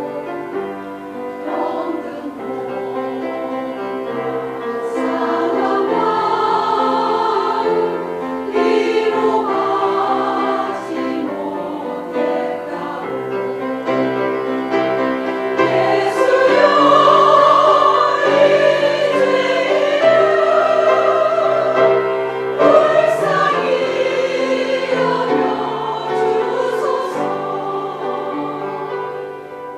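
Choir singing a Christian praise song in sustained, held chords.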